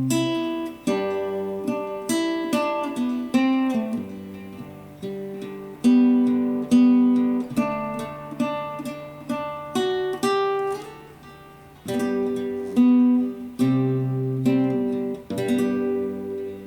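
Acoustic guitar played solo: a slow melody of plucked notes with strummed chords, each note ringing and fading. These are the closing bars, and the last chord rings until it cuts off at the very end.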